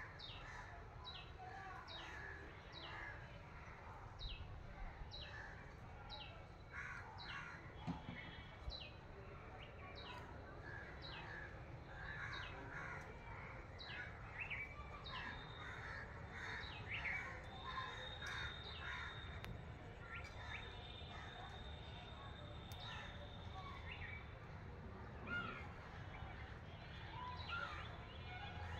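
Outdoor birdsong: one bird repeats a short, high, falling note steadily, about once or twice a second, through the first half, while other birds call over it, including crow-like cawing.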